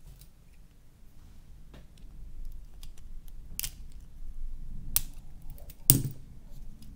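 Plastic clicks and taps from handling a phone's plastic inner frame and working it with a plastic pry tool. A few sharper clicks stand out, the loudest about six seconds in.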